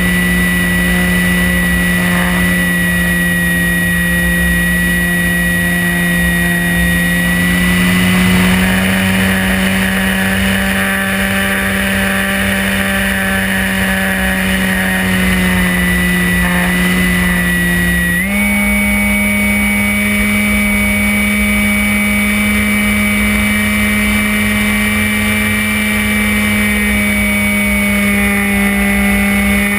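Electric motor and propeller of an RC FPV plane, heard from the onboard camera, droning steadily with a high motor whine over wind rumble. The pitch rises slightly about a quarter of the way in and jumps up suddenly past the halfway mark as the throttle is opened.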